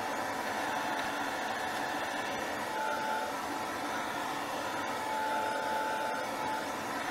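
Handheld craft heat tool blowing a steady stream of air, an even hiss with a faint motor whine, drying wet liquid acrylic paint on paper.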